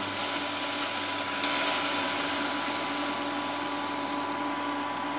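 Onions, tomatoes and green chillies frying in oil in a stainless steel pot, a steady sizzle that gets a little louder about a second and a half in, over the steady hum of an induction cooktop.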